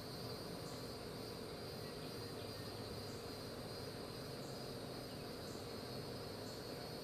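Insects calling: a steady high trill with a separate short chirp repeating about once a second, over a faint outdoor background hiss.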